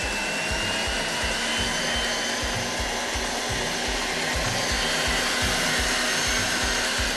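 Electric mixer kneading bread dough: a steady motor whir, with a rapid low thumping of about four beats a second underneath.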